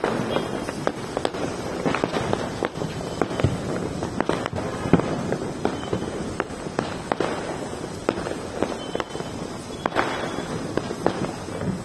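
Hand-held green pyro torches burning with a steady fizzing hiss, dotted with many sharp crackles and pops at irregular intervals.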